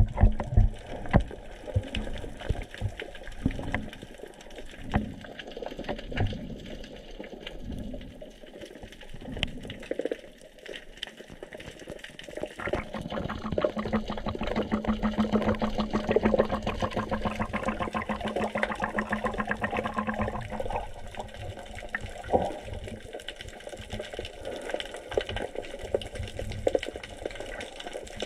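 Muffled underwater sound of water moving around a camera, with uneven low swishes and thumps. For several seconds in the middle a steady hum with fast regular pulsing comes in, then fades again.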